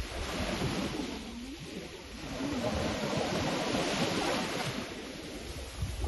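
Wind buffeting the phone's microphone over the steady wash of the sea.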